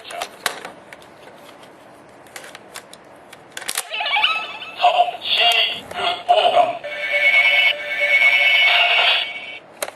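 Tensouder toy morpher playing an electronic voice callout and jingle through its small speaker, triggered by an inserted Gosei card; it starts about four seconds in and ends with a held tone just before the end. Before it, a few light plastic clicks from handling the toy and card.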